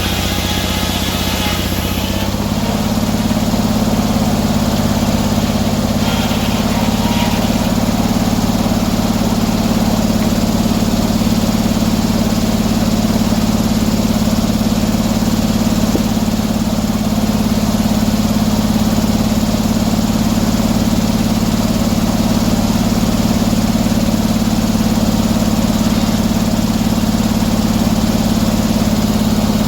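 Sawmill's engine running steadily; about two seconds in its note steps up slightly and holds there.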